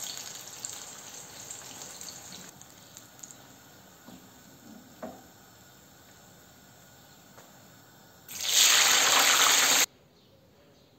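Eggplant cubes sizzling in hot frying oil, a steady hiss that dies down after about two and a half seconds, with a few faint knocks in the middle. Near the end a much louder burst of hissing lasts about a second and a half and cuts off suddenly.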